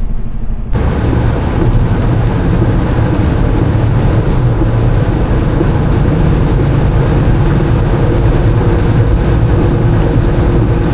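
Semi truck driving on a rain-soaked highway: a steady low engine drone under a loud, even hiss of wind, tyre spray and rain on wet pavement, which comes in abruptly about a second in.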